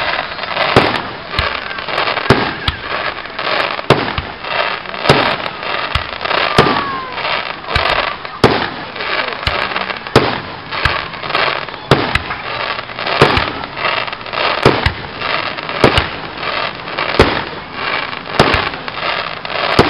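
Aerial fireworks bursting in quick succession: a sharp bang every half second to second over continuous crackling.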